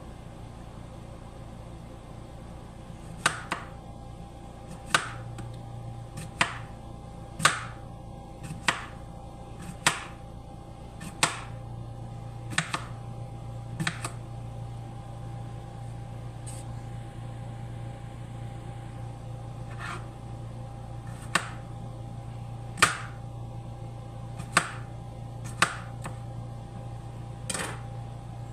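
Kitchen knife slicing through a cucumber onto a plastic cutting board: a sharp tap as the blade hits the board at each slice, about one every second or so, some sixteen in all, with a sparser stretch in the middle. A steady low hum runs underneath.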